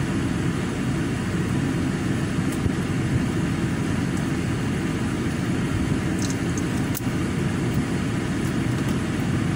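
Steady low rumble of a car running, heard from inside the cabin, with a few faint clicks of chicken being eaten by hand.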